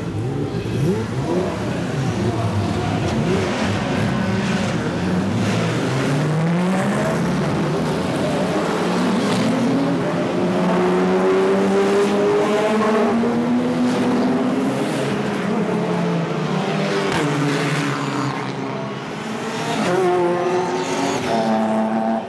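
A field of GT race cars, among them Porsche 911 GT3 Cup cars and an Audi R8 LMS, pulling away one after another and accelerating past at full throttle, their engine notes overlapping and rising through the gears. The noise dips briefly about three quarters of the way through, then another car passes near the end.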